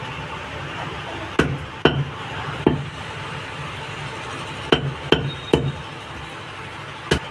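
A large chopping knife striking a wooden log chopping block as chicken is cut into pieces: seven sharp chops in irregular clusters, two about a second and a half in, one near three seconds, three quickly one after another near five seconds, and one near the end.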